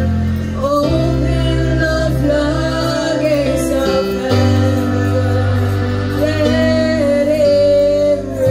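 Women singing a gospel worship song into microphones over a live band, holding long, wavering notes over sustained keyboard chords that change about a second in and again near the middle.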